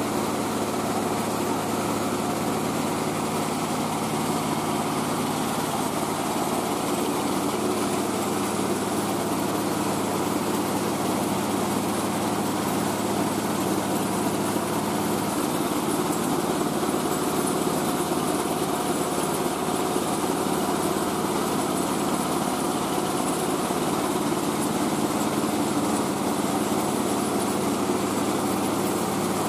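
Engine-driven mobile rice-milling machine running steadily while it mills paddy: a constant mechanical hum made of several steady tones. The low tone shifts slightly about halfway through.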